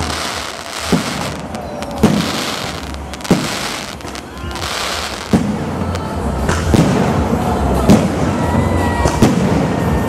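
Fireworks display: aerial shells bursting overhead in a steady series of sharp bangs, about one every second and a half, seven in all, with crackling hiss from the bursting stars in between.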